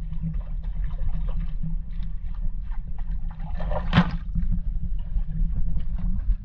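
Canal water sloshing against an action camera held half-submerged at the surface, muffled, over a steady low rumble, with a short splash about four seconds in.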